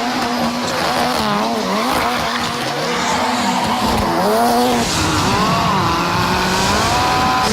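Ken Block's Ford Fiesta rally car driven hard: the engine is held at high revs with brief dips, and the tyres squeal with a pitch that wavers up and down as the car slides.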